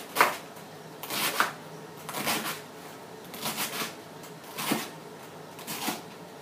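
A knife slicing through a raw head of green cabbage onto a wooden cutting board: six crisp, crunchy cuts, about one a second.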